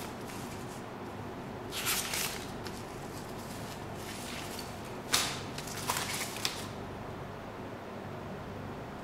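Paper pages of a spiral-bound manual being turned by hand: a short rustle about two seconds in, then a sharper page flip with a few crinkles from about five to six and a half seconds. A steady low hum runs underneath.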